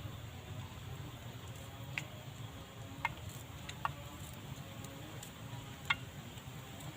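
Four short, sharp taps of utensils over a steady low background hum, made while a garlic-and-shallot spice paste is being prepared.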